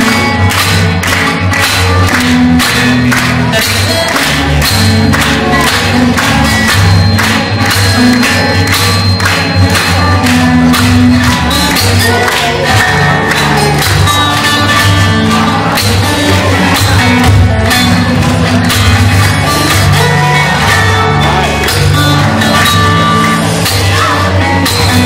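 Solo steel-string acoustic guitar played fingerstyle and amplified through a stage speaker: a plucked melody over bass notes with crisp note attacks.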